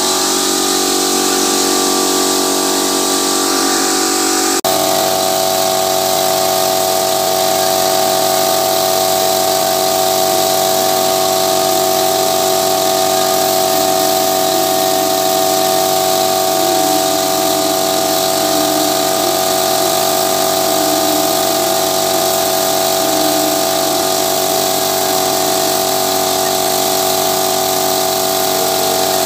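Air compressor running steadily, feeding a paint spray gun on a hose, with the hiss of the spraying air over the motor's drone. The drone's tone shifts abruptly about four and a half seconds in.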